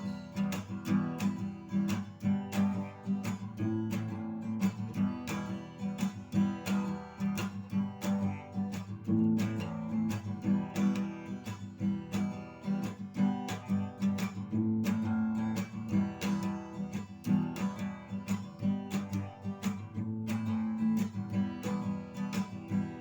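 Music: a guitar strumming chords in a steady rhythm, with no singing. This is the instrumental break of the song between the first chorus and the second verse.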